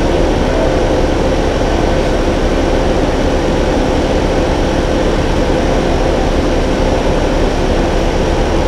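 2010 Ford Taurus SHO's twin-turbo 3.5 L EcoBoost V6, a freshly installed replacement engine, idling steadily on one of its first runs.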